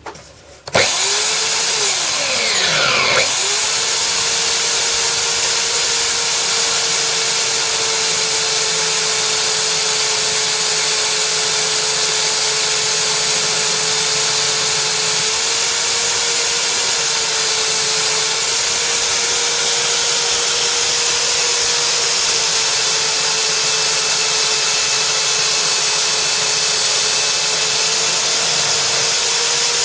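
Silverline 810 W belt sander switched on about a second in. Its whine climbs as the motor spins up over about two seconds, then it runs steadily while a rough piece of oak is sanded on a coarse belt.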